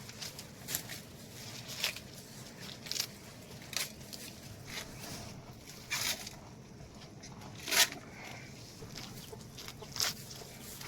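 Chickens clucking: short, separate clucks every second or two, the loudest about eight seconds in, over a quiet background.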